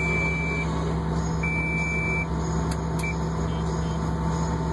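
Heavy equipment's backup alarm beeping: long, high beeps about two seconds apart, three of them, the last one cut short. Under it runs a steady low engine drone, with two sharp clicks near the middle.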